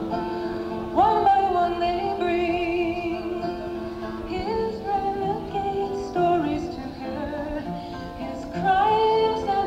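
A woman singing live with acoustic guitar, her voice sliding up into held notes with vibrato, heard through a dull, lo-fi 1970s audience cassette recording.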